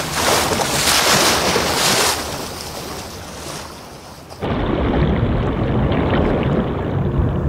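Sea water rushing and splashing loudly over a surfacing fin whale's back, fading over the next few seconds. At about four and a half seconds it cuts suddenly to a duller, low underwater rumble.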